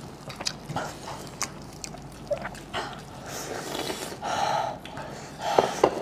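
Close-miked eating sounds: people chewing and biting food, with wet smacking clicks and short noisy bursts of mouth sounds.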